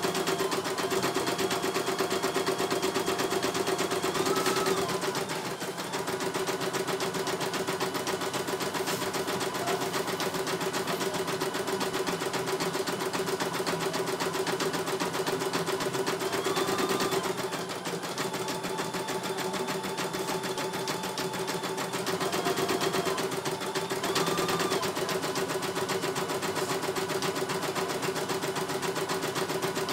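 CNY E900 computerized embroidery machine stitching, its needle working in a fast, steady rhythm while the hoop carriage moves the fabric. The motor eases off briefly a few times and picks up again.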